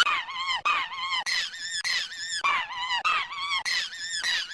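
High-pitched, squeaky cartoon-character voice repeating short wavering squeaks, each arching up and down in pitch, about two a second.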